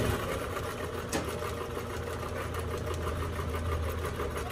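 Brother electric sewing machine running steadily, stitching a seam through layers of cotton fabric and batting: an even motor hum with rapid needle strokes.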